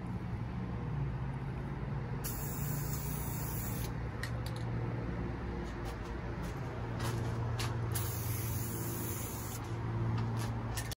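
Aerosol spray-paint can hissing in two bursts of a second and a half or so each, about two seconds in and again near eight seconds, painting steel angle-iron mounting brackets. A low steady hum runs underneath.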